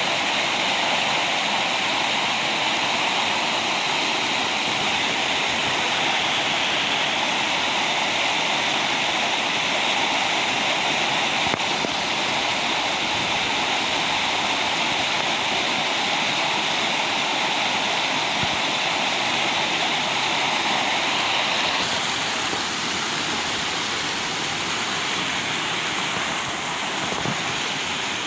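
Waterfall: a steady, loud rush of falling water that turns a little quieter and duller about twenty-two seconds in.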